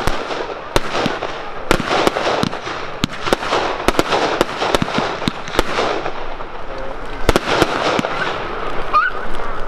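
Fireworks display: a rapid run of sharp bangs from bursting shells, roughly two a second with a short lull about six seconds in, over a continuous crackling hiss.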